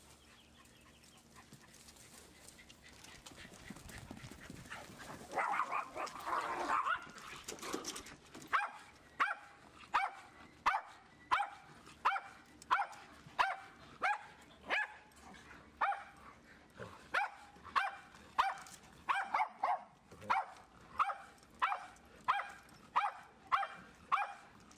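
A dog barking over and over in an even rhythm, about one and a half barks a second, during rough play with other dogs. The barking starts about eight seconds in, after a short burst of higher yelps and whines.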